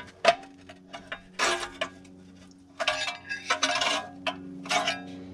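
Metal hand tools clinking and rasping against steel brake parts at a car's front wheel hub, in a few short bursts with sharp clicks between.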